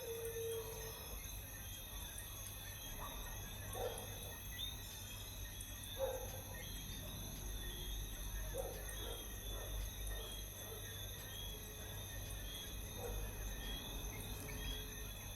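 Night chorus of insects, a layered steady high-pitched trilling with quick chirps, and an animal giving a short falling call every two to three seconds, over a low steady hum.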